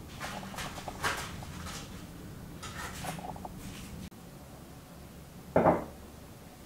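Scissors snipping and rustling baking paper in a metal baking tray: a run of short crisp cuts and paper crackles. About five and a half seconds in comes a single short, loud call.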